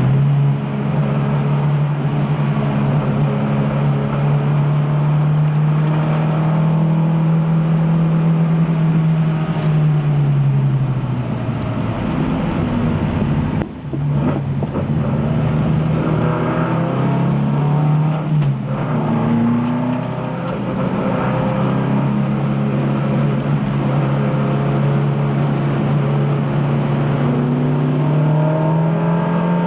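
Onboard sound of a 1971 Alfa Romeo Giulia's twin-cam four-cylinder engine under racing load. The engine note holds steady at high revs, falls away about ten seconds in as the car slows, is broken by quick gear changes around the middle, and climbs again near the end.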